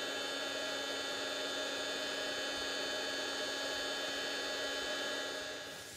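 A steady hum made of several held, unchanging tones. It cuts off suddenly near the end.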